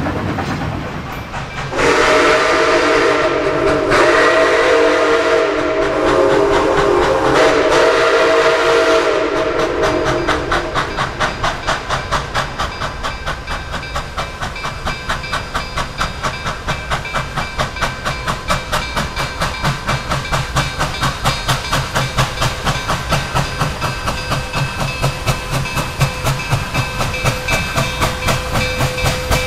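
Steam locomotive Nickel Plate Road 765, a 2-8-4 Berkshire, blowing its chime whistle in three blasts for about eight seconds. It then works toward the listener with a steady exhaust chuff of about two beats a second, over the hiss of steam.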